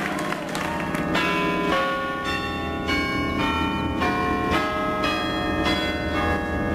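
Church bells pealing, struck in quick succession about twice a second from about a second in, each stroke ringing on under the next.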